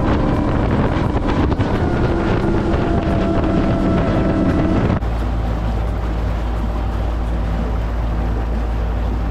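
Mercury outboard motor running as the boat cruises, with wind buffeting the microphone. About halfway through there is an abrupt cut to a steadier, lower engine hum with less wind.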